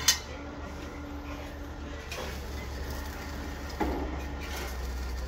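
Building-site noise: a steady low rumble of machinery with a sharp click right at the start and a few knocks and clanks around two and four seconds in.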